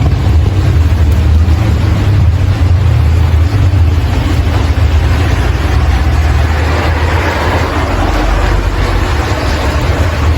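Steady rain falling: a continuous hiss over a deep low rumble, the hiss swelling a little in the second half.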